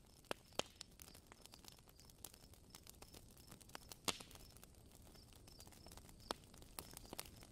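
Faint, irregular crackling: scattered sharp pops and clicks over a low hiss, with the sharpest pop about four seconds in.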